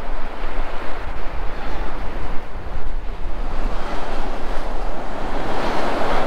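Waves washing onto a sand beach, with wind buffeting the microphone as a steady deep rumble; the surf swells louder near the end.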